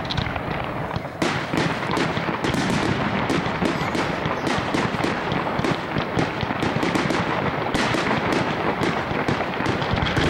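Fireworks display: aerial shells bursting in rapid succession, a dense, unbroken barrage of bangs and crackling.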